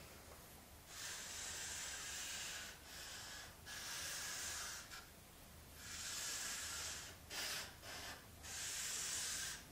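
Marker pen drawing on flipchart paper: a dry, scratchy hiss in about four long strokes of one to two seconds each, then a few short strokes near the end.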